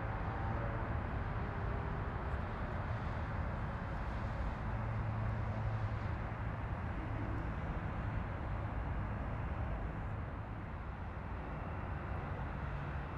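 Twin-turboprop Beechcraft 1900D's Pratt & Whitney PT6A engines and propellers at takeoff power during the takeoff roll: a steady drone with a low hum underneath.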